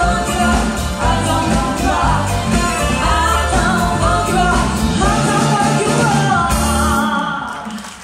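Band playing upbeat cha-cha music with female vocals over bass, electric guitar, drums and keyboard. Near the end the music stops and dies away.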